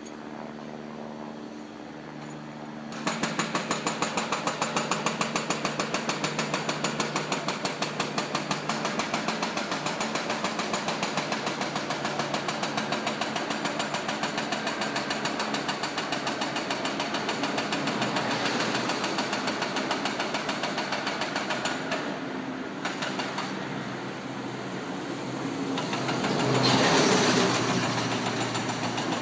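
An engine-driven machine running with a fast, even pulsing that starts abruptly about three seconds in, with a louder rushing swell near the end.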